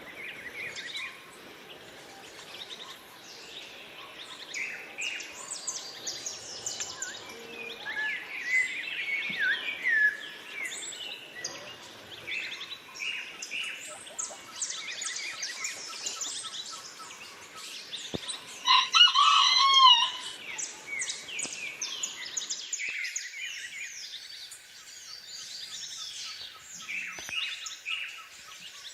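Several birds chirping and singing together, with quick overlapping chirps and trills. About two-thirds of the way through comes one louder call of arching notes.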